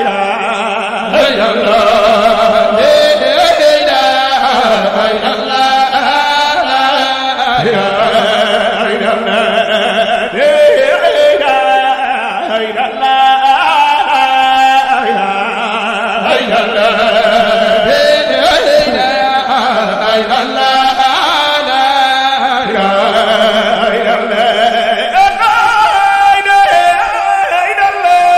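A man chanting a devotional song in a long, ornamented melody, holding and bending notes through unbroken phrases.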